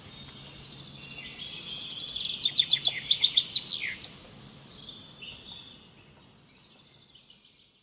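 Birds chirping: a run of rapid, loud high-pitched chirps about two to four seconds in, ending in a falling note, then fainter calls that fade away.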